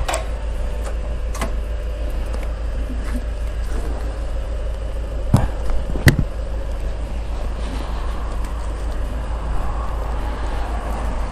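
Petrol station fuel pump running steadily with a low hum and a faint even tone while the tank is filled, with a few sharp clicks, the loudest two about five and six seconds in.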